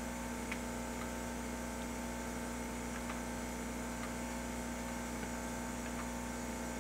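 A steady electrical hum made of several fixed tones over a faint hiss, with a few faint ticks.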